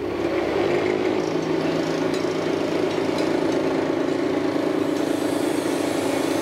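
A blower-fed gas forge starting up and then running: a steady rushing noise with a constant low hum that comes on at the start and holds evenly.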